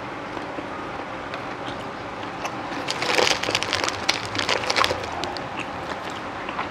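Close-up crunching and crackling of someone biting and chewing crisp raw vegetables, a dense run of crunches about three to five seconds in, over steady background noise.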